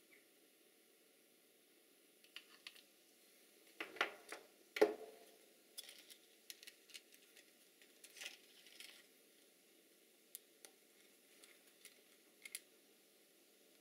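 Hands handling a plastic mains-to-USB power adapter and its plug piece, with scattered small clicks and rattles. The two loudest knocks come about four and five seconds in.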